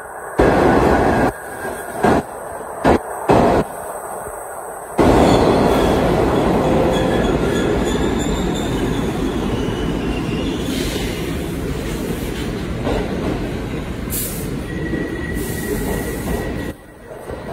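New York City subway train running into the station: wheels and motors make a loud rumble, with thin squeals from the wheels and brakes. In the first five seconds the noise comes and goes in loud bursts. From about five seconds in it holds steady, slowly eases, and drops off sharply near the end as the train comes to a stop.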